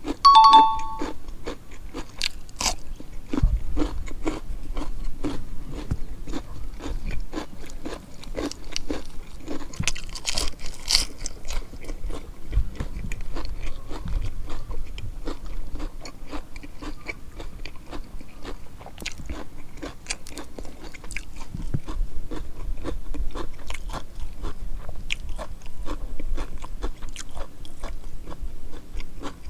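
A person chewing and crunching food close to the microphone, with quick irregular wet clicks of eating throughout.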